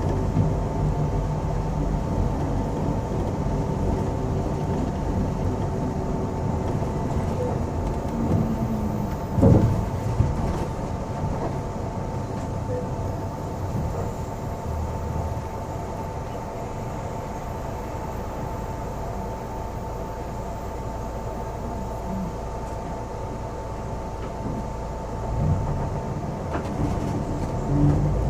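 Steady engine and road rumble heard inside the cabin of a moving double-decker city bus, with a thin steady whine above it. There is a brief knock about nine seconds in, and the rumble swells slightly near the end.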